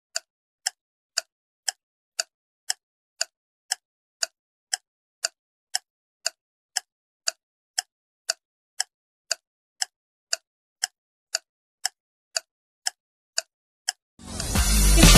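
Clock-tick countdown sound effect, a sharp tick about twice a second, running while a picture puzzle waits to be guessed. Near the end the ticking stops and music starts suddenly.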